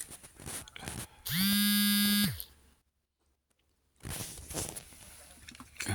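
A small electric motor buzzing for about a second, rising in pitch as it spins up and falling as it stops, amid clicks and handling noise. It is followed by about a second of dead silence.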